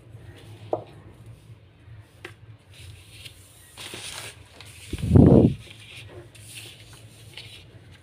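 Small erasers and a clear bowl handled on a tabletop: a few light clicks and rustles, then one loud, low thud about five seconds in, over a faint low hum.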